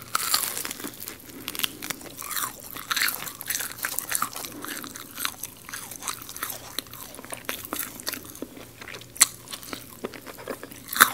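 Close-miked biting and chewing of crispy garlic fried chicken: dense crackling crunches of the fried coating throughout, with sharper, louder crunches about nine seconds in and just before the end.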